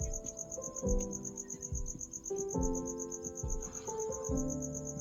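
Steady high-pitched trill of a cricket, pulsing about ten times a second, over soft background music of sustained notes that change every second or so.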